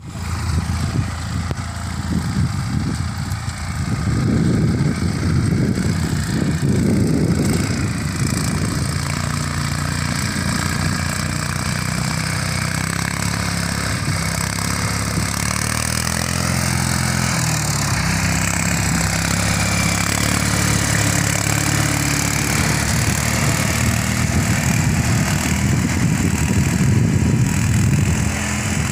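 Small farm tractor engine running steadily under load as it pulls a tillage implement through dry soil.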